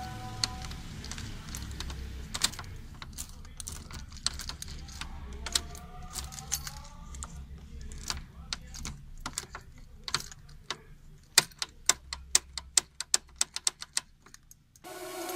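Metallic clicks and rattles of a key being inserted, wiggled and turned in a Chevy ignition lock cylinder, with the key ring jangling. The cylinder is worn out and no longer works the switch when the key turns. The clicks come thicker and sharper in the last few seconds.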